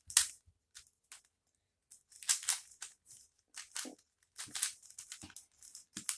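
Plastic 3x3 shape-mod twisty puzzle being turned by hand: quick irregular clicks and scrapes as its layers rotate, with a short pause about a second and a half in.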